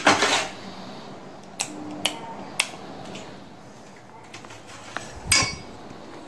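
Kitchen clatter of metal kitchenware: a few sharp clicks and knocks, then a louder ringing metallic clink about five seconds in.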